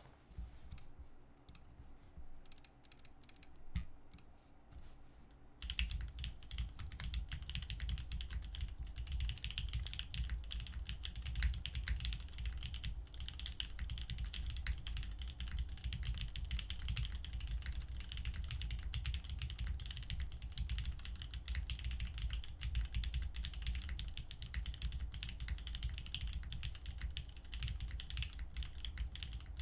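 Typing on an Iron165 custom mechanical keyboard (stainless steel top, copper bottom case, POM plate) fitted with lubed Cherry "Nixdorf" MX Black linear switches. A few scattered keystrokes at first, then fast continuous typing from about six seconds in.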